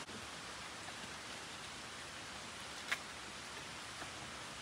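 Steady, even hiss of background noise, with one sharp click about three seconds in.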